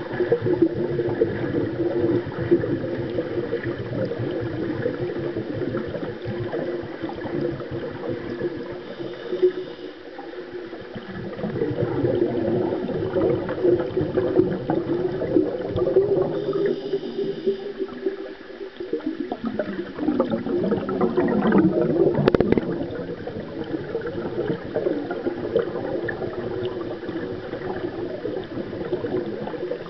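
Pool water heard from underwater: swimmers' kicks and strokes churning the water, with a steady crackle of bubbles, muffled by the water.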